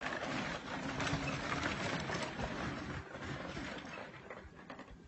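Small engine of a riding lawn mower running steadily, growing fainter toward the end.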